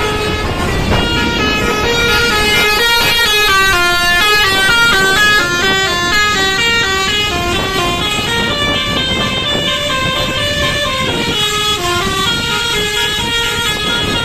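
Bus's Basuri multi-tone 'telolet' horn playing a long, winding tune: a quick run of stepped horn notes rising and falling in pitch, over a low rumble.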